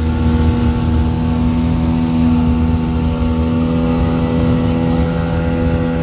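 Speedboat engine running steadily at full throttle, a constant drone with a rushing noise of wind and water over it.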